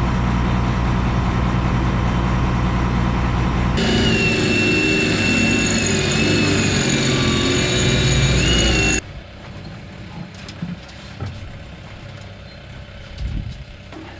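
Combine harvester's diesel engine running steadily. About four seconds in, a high wavering whine joins it. About nine seconds in, the engine sound cuts off abruptly, leaving a much quieter background with a few knocks.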